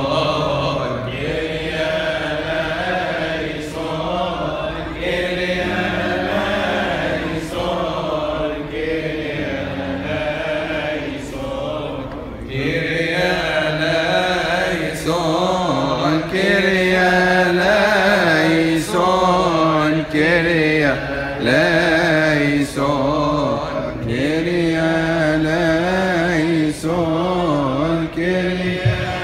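Group of male Coptic Orthodox deacons chanting a liturgical hymn in unison through microphones, in long melismatic lines. The chant grows louder about halfway through.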